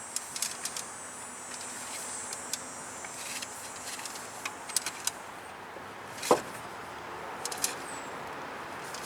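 Scattered light metallic clicks and taps from a steel brake line being handled and bent by hand, with one louder knock about six seconds in.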